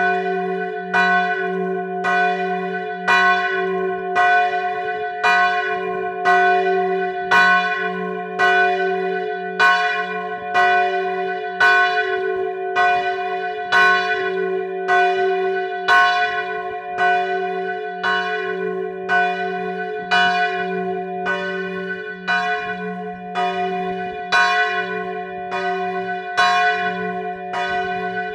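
Church bells ringing a death knell (glas), with the large swinging bell in full peal. Even strokes come about once a second, each ringing out over a low hum that never dies away.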